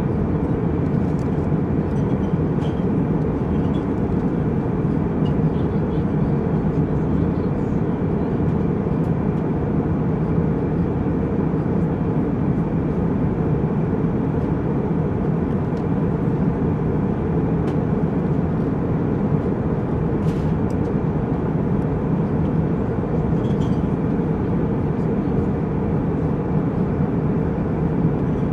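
Jet airliner cabin noise in flight: the steady low rumble and rush of the engines and the air streaming past the fuselage, unchanging throughout, with a few faint clicks.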